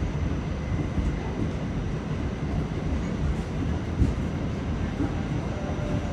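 R46 subway car running at speed, heard from inside the car: a steady rumble of wheels on rails and motors, with one sharp knock about four seconds in.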